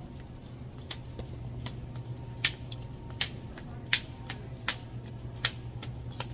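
A small child's shoes tapping on the floor as she steps about, sharp separate clicks roughly every half second to a second, over a steady low hum.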